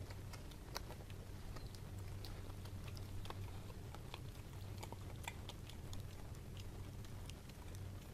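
Dog gnawing a fresh beef bone, its teeth clicking and scraping on the bone in an irregular run of small cracks. A steady low hum runs underneath.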